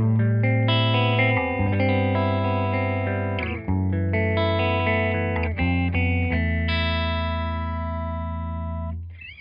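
Clean electric guitar, a PRS McCarty Hollowbody through a Tyler PT-22 amp, played dry as the reference tone with no tremolo on: a short run of strummed chords, the last one ringing out for over two seconds before being stopped.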